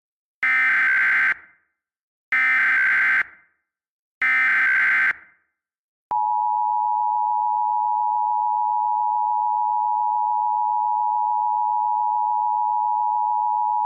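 Emergency Alert System tones: three identical one-second bursts of SAME header data, the digital code that carries the alert type and area, followed by the two-tone attention signal, a steady dual tone held for about eight seconds that announces an emergency message is about to be read.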